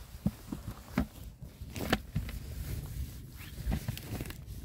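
Footsteps and rustling through forest undergrowth, with irregular sharp snaps and crackles over a steady low rumble.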